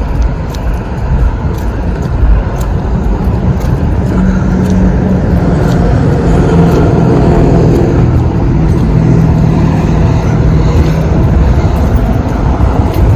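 An engine running steadily: a loud low hum that drifts slightly in pitch, with scattered light clicks over it.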